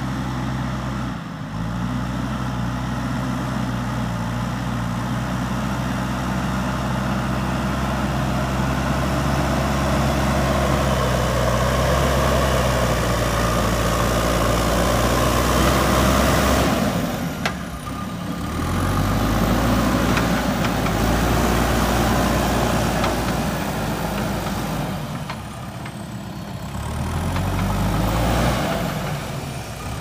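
JCB 3DX backhoe loader's diesel engine working under load as the front bucket pushes and levels soil. The engine note rises and falls several times as the load changes.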